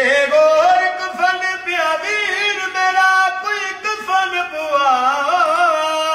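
An elderly man singing solo: one long melodic phrase of held notes that slide and waver in ornamented turns.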